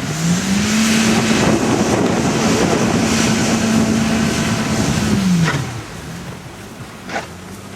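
A car stuck in snow spinning its wheels: the engine and spinning tyre rise to a steady whine for about four seconds, then drop away. Two short clicks follow near the end, over wind noise.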